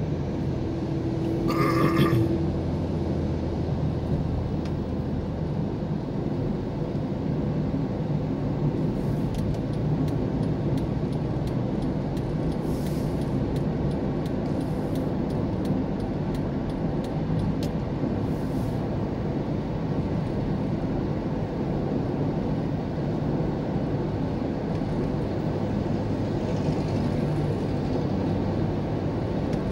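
Steady engine hum and tyre road noise inside a car's cabin while driving along an expressway. About two seconds in, a short louder sound stands out: a steady tone with a burst of hiss.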